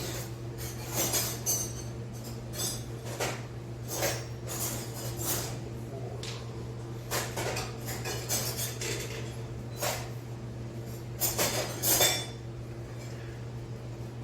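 Irregular metal-on-metal clinks and knocks from tools striking and handling steel parts as a wheel hub is driven into a newly pressed wheel bearing in a Honda knuckle, with a quick run of louder strikes near the end.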